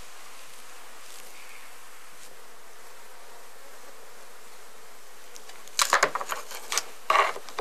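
Steady hum of thousands of honey bees clustered in wooden-and-screen shipping packages. Near the end come two loud spells of creaking and squeaking as the wooden slats nailed across the stacked packages are pried apart.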